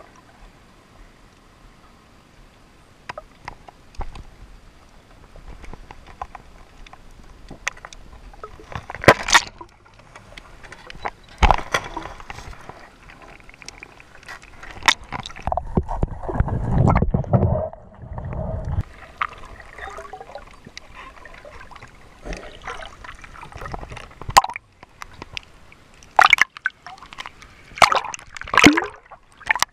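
Water sloshing and gurgling around a camera held underwater, broken by scattered sharp knocks and clicks. A longer rush of water noise comes about halfway through, and several loud splashy bursts come near the end.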